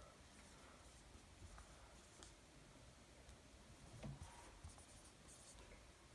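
Red dry-erase marker writing on a whiteboard: faint scratching strokes of the felt tip, with a light knock about four seconds in.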